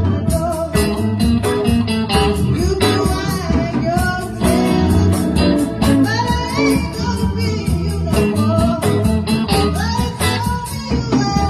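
Live blues band jamming a song, with a voice singing over a steady beat.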